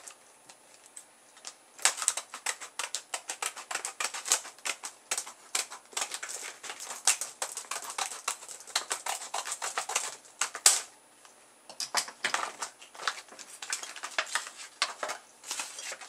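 Scissors cutting open a hard clear plastic blister pack: a quick run of crisp snips and crackles of the plastic, starting about two seconds in, with a short break about three-quarters of the way through.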